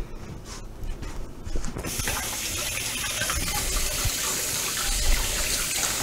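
A kitchen tap is turned on about two seconds in and runs steadily, water pouring into the sink. A few light knocks come before it.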